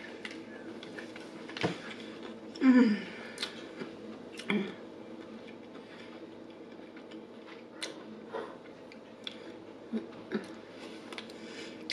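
Close-miked chewing of crispy fried chicken: scattered crunches, mouth clicks and smacks. About three seconds in comes a short hum of the voice, falling in pitch, which is the loudest moment. A faint steady hum runs underneath.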